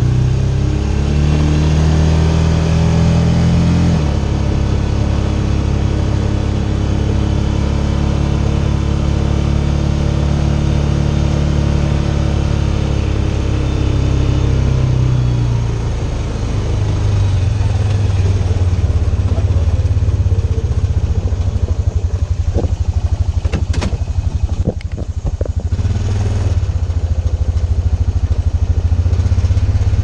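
Honda Big Red 700 UTV's single-cylinder engine running under way. The engine note shifts abruptly about four seconds in, then drops to a lower, steady note about halfway through, with a few sharp knocks about three-quarters of the way through.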